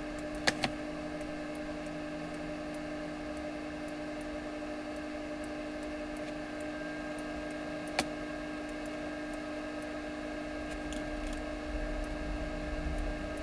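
Steady electrical hum with a faint hiss, broken by a few sharp clicks: two close together about half a second in and one around eight seconds in.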